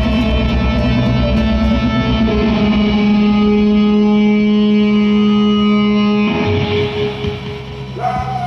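Electric guitar through effects pedals, held in long sustained distorted tones over a steady low note. The held sound stops about six seconds in and the level drops, then new guitar sound comes in near the end.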